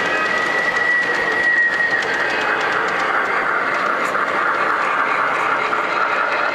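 G scale model steam locomotive and its train of coal hopper cars rolling past on the track, a steady running noise with light clicking from wheels and drive. A thin high tone sounds for the first two seconds and then fades.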